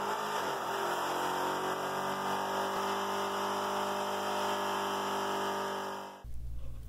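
Car engine held at high revs during a burnout, with a steady hiss of spinning tyres; the sound cuts off suddenly about six seconds in.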